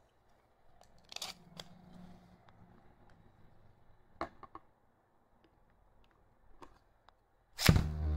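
Small plastic clicks and taps as a 3D-printed Beyblade top is fitted onto a string launcher. Near the end, one sudden loud burst as the launcher's string is ripped and the top drops into a plastic stadium, followed by a steady hum.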